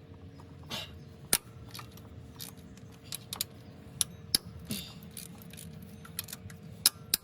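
Hand tools clinking and tapping on metal while parts are unbolted in an engine bay: irregular sharp clicks and knocks, a few a second, over a faint steady hum.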